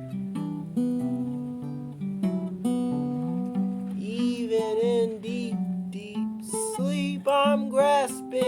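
Background music: a song with acoustic guitar, and a voice singing that comes in about four seconds in.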